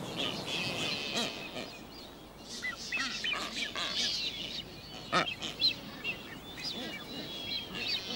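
Blue-footed boobies calling during a courtship display: a run of short, high whistles and chirps, with one sharper, louder call about five seconds in.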